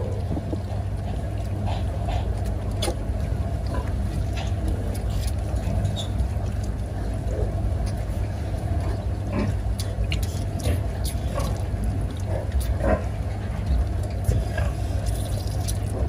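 Piglets drinking from a metal nipple drinker and shuffling on a slatted metal floor, giving scattered light clicks and taps over a steady low mechanical hum.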